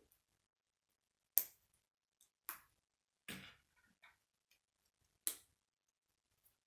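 Plastic K'nex pieces clicking as they are snapped together by hand: four sharp clicks a second or so apart, the first the loudest.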